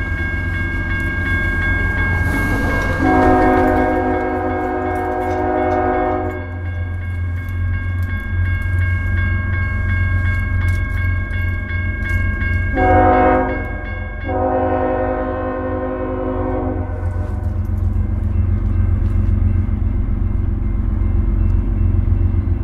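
Multi-chime air horn of a CSX freight train blowing for a grade crossing: a long blast about three seconds in, then a short and another long blast past the middle, over a steady low rumble of the locomotives' diesel engines. A crossing warning bell rings with it as the gates come down and stops about two-thirds of the way through.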